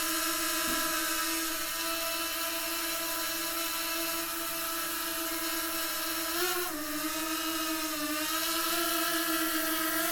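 DJI Mini 2 quadcopter drone flying, its propellers giving a steady high buzzing whine. The pitch wavers up and then drops about six and a half seconds in, and dips again briefly near eight seconds.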